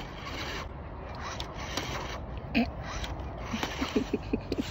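Small electric RC rock crawler's motor and gears grinding as it climbs over a garden hose, its tyres scrabbling on gravel. There is a thump about halfway through and a quick run of clicks near the end.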